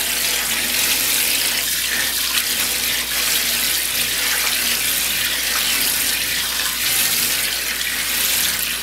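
Kitchen faucet running a steady stream into a stainless steel sink, filling it with soapy water.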